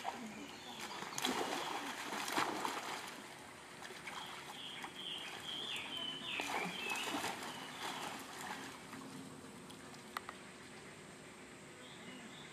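Water splashing and trickling as a baby monkey swims. There are bursts of splashing about a second in and again around six seconds in, with a run of short, high chirping calls between them.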